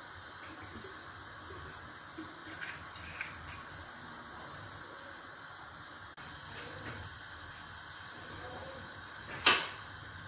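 Steady hiss from the stovetop as oil heats in an aluminium pot and a lidded pot of water heats alongside, with a few faint clicks and one sharp knock near the end.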